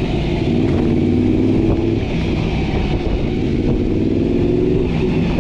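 1988 Honda VFR750F's water-cooled V4 engine running under way, heard from the rider's seat, its pitch holding fairly steady.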